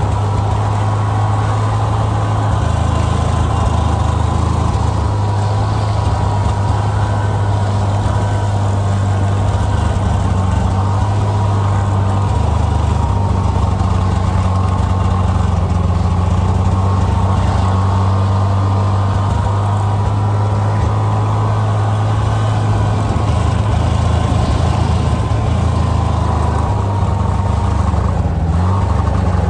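Snowmobile engine running steadily while under way, towing a loaded passenger sled over snow, with a thin whine above the engine note. The engine note dips briefly near the end.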